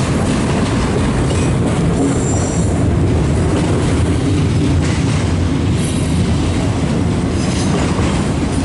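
Canadian Pacific freight train of auto rack cars rolling past close by: steady loud rumble and clatter of steel wheels on rail, with short high wheel squeals about two seconds in and again near six seconds.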